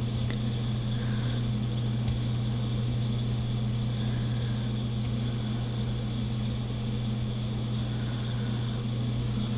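Steady low background hum with a faint, high, steady whine and no other distinct sounds.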